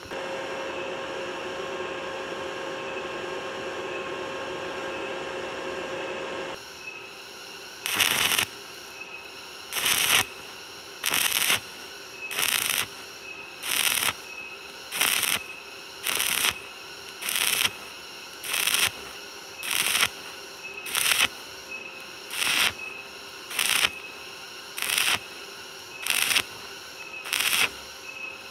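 Stick welding with an E6013 rod on galvanized square tubing in a stitch pattern: the arc crackles in short bursts, about one every 1.2 seconds, some seventeen times, starting about eight seconds in. Before that, a steady hum with several held tones.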